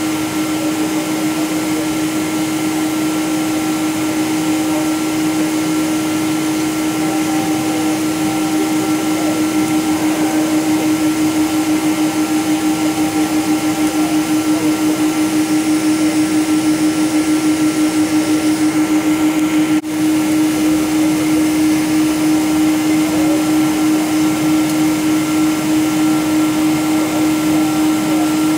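Jet engines of a Boeing 777-200 heard inside the passenger cabin: a steady, loud drone with a held tone and a pulsing beat, over a rush of cabin noise.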